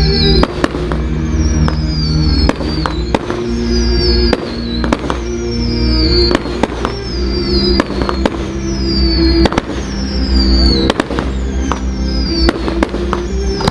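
Fireworks display: a stream of sharp bangs from bursting shells at irregular intervals, over loud music from the show's sound system with a falling high tone that repeats about every second and a half.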